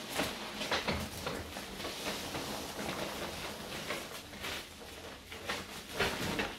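Bubble wrap and styrofoam packing peanuts rustling and crackling irregularly as a wrapped package is worked up out of a cardboard box.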